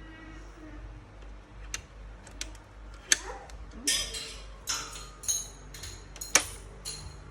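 Hardware being handled inside an opened 2019 Mac Pro during a GPU module swap. A run of sharp clicks and light metallic clinks, denser and louder in the second half.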